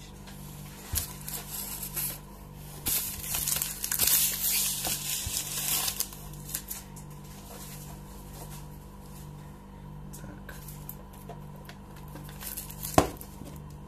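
Wrapping paper being crumpled and rustled by hand, loudest in the first half, then quieter handling, with a single sharp knock near the end. A steady low hum runs underneath.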